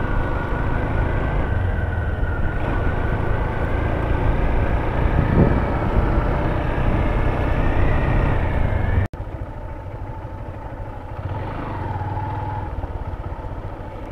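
Honda CB Hornet 160R's single-cylinder engine running while the bike is ridden, with road and wind noise. Its pitch rises a little, then the sound cuts off abruptly about nine seconds in and continues quieter.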